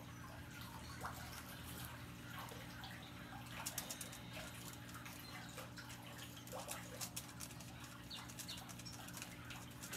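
Faint background of scattered short bird chirps and a few light clicks over a steady low hum.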